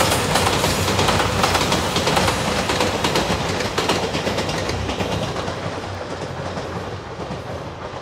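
JR 2700 series diesel express train passing close by, its wheels clicking over the rail joints. The sound fades steadily as the train pulls away.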